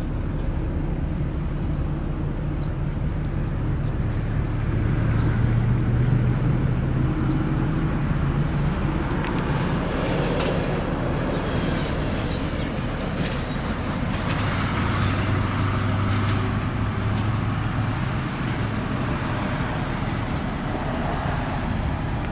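2000 BMW 320 (E46)'s straight-six engine idling steadily, with traffic noise swelling and fading twice.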